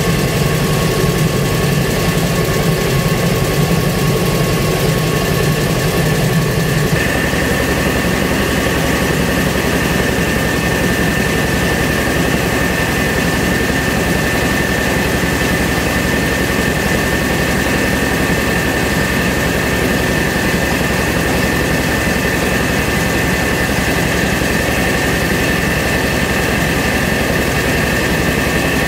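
Mobile rice mill (huller and polisher) running steadily while milling paddy into white rice: a loud continuous machine drone. About seven seconds in the sound shifts, and a steady high whine holds from then on.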